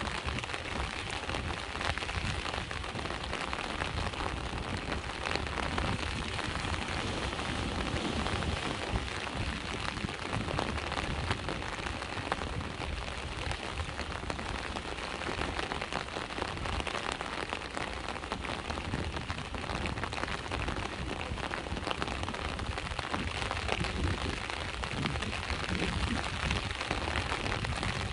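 Steady rain falling on a surface, a dense even crackle, over a low, continuous rumble of sea waves.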